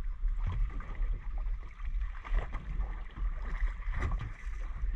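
Wind buffeting the microphone in a low, uneven rumble, with water slapping and splashing against a small boat's hull in short irregular knocks.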